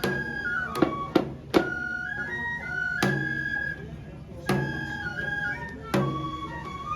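Japanese lion-dance festival music: a bamboo flute holds a stepped, high melody, punctuated by sharp drum strikes at uneven intervals.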